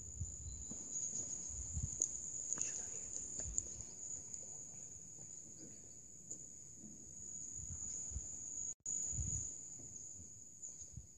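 Singing insects, crickets or bush-crickets, in a steady, continuous high-pitched chorus, with irregular low rumbles underneath like wind or handling on the microphone.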